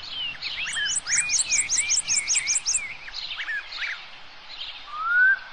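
Woodland songbirds singing in chorus: many short slurred chirps and whistles. A fast high trill of about a dozen repeated notes comes about a second in, and a louder rising whistle near the end.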